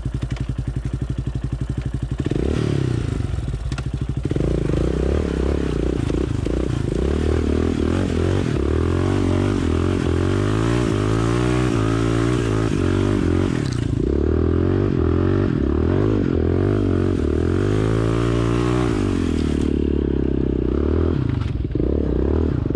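ATV (quad bike) engine running under load, its revs climbing about two seconds in and then rising and falling several times as the rider works the throttle on a muddy trail.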